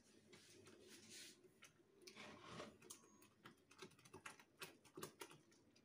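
Faint clicks and light taps of utensils against the pots as cooked tagliatelle is lifted from the pot and dropped into a pan of tomato sauce. There are a couple of short soft swishes in the first half, then a run of small ticks.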